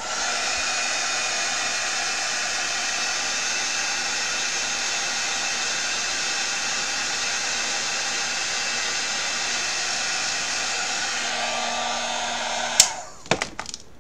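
Hand-held hair dryer blowing steadily, drying freshly applied chalk paste on a craft transfer. It is switched off near the end, with a click and a few light knocks.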